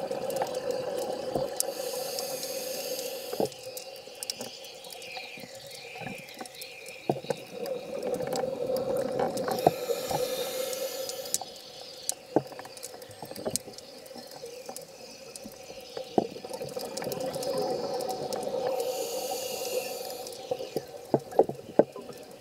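Scuba diver breathing through a regulator underwater: three hissing inhales about eight to nine seconds apart, with bubbling exhales and clicks between them, over a steady hum.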